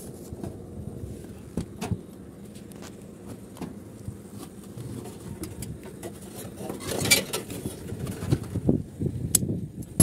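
Light metallic clinks and rattles of loose bolts and metal parts being handled, with a louder clatter about seven seconds in, over a steady low background rumble.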